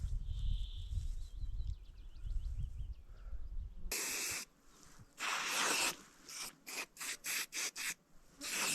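A low rumble of wind on the microphone with a bird's warbling call, then a run of short rustling or scraping swishes, several in quick succession in the second half.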